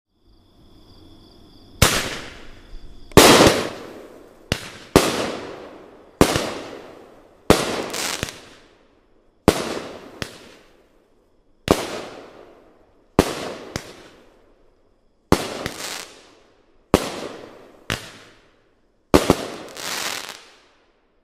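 Boomin Bulldog 'Tuff Stuff' 200-gram, 12-shot consumer firework cake firing its shots one after another, one to two seconds apart and some in quick pairs. Each shot is a sharp bang that dies away over about a second. A faint hiss comes before the first shot.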